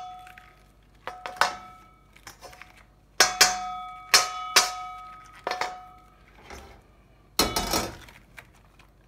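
A spoon knocking and scraping stir-fried food out of a wok onto a plate: about eight sharp knocks, several in pairs, each leaving the wok ringing, with a longer scrape a little after seven seconds.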